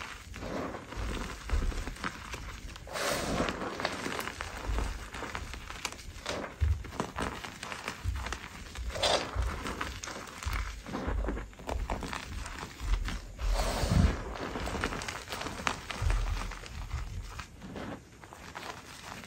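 Hands squeezing and crushing gym chalk, the lumps crumbling into powder with irregular crunches. Soft low thumps come through as the hands press into the pile.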